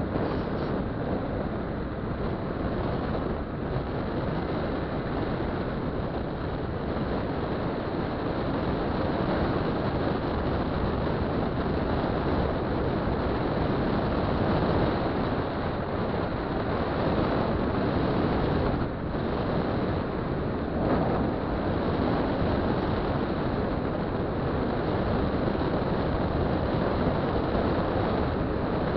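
Steady wind rush on the camera's microphone and road noise from a small vehicle riding at speed, with its engine running underneath.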